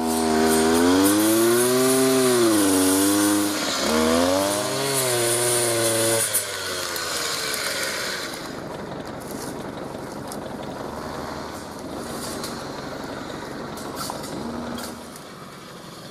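Petrol brush cutter engine revving up and down for about six seconds, then stopping abruptly. A quieter steady hiss with a few faint clicks follows, dropping lower near the end.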